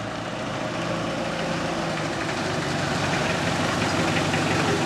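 Engine of a 1955 Chevrolet sedan running as the car approaches and pulls up, getting steadily louder.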